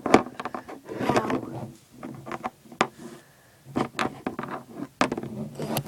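Small plastic toy figurines being handled by hand: an irregular run of clicks, taps and rustles.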